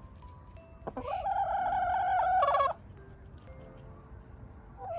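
Hen giving one loud, drawn-out call of nearly two seconds with a wavering pitch, ending in a quick stutter. A shorter call starts right at the end.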